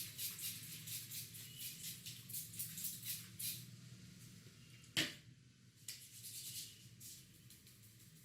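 Hands rubbing and working the hair and scalp in a head massage, a quick run of soft scratchy brushing strokes that thins out about halfway through. About five seconds in there is one sharp snap, the loudest sound. A low steady hum runs underneath.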